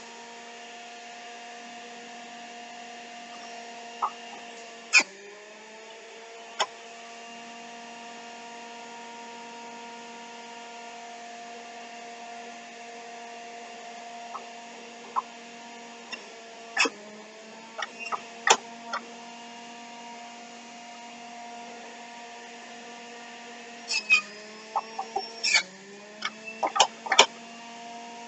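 Electric juicer motor running with a steady hum. Its pitch dips briefly and recovers several times, amid sharp knocks and clacks: one about five seconds in, a group past the middle and a busier run near the end.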